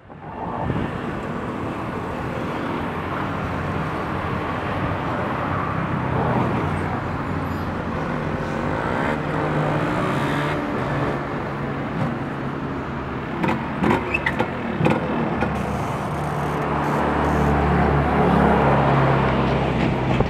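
Motor vehicle engines running steadily, growing louder near the end, with a few short clicks and knocks about two-thirds of the way through.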